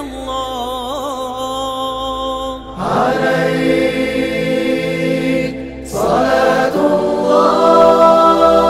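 Aleppan funeral chant for a martyr (tajwiq al-mayyit): a single chanter's voice winding through an ornamented, wavering phrase, then a group of voices coming in on long held notes about three seconds in, breaking off briefly and entering again louder near six seconds.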